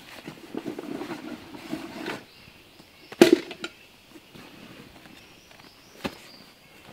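Rustling and rummaging in a fabric backpack, then a sharp knock about three seconds in as a cooking pot is set down on the tarp, and a lighter knock near the end as another item is put down.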